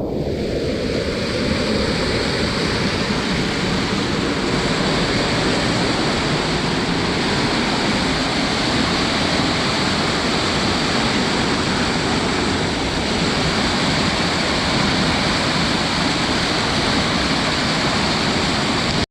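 A creek running high and fast with snowmelt, rushing and spilling into a pool: a loud, steady roar of water.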